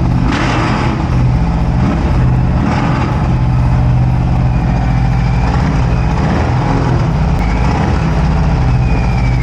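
Harley-Davidson Softail Sport Glide's Milwaukee-Eight V-twin engine running in neutral, steady and loud. It is being run to test the throttle-by-wire after new grips were fitted.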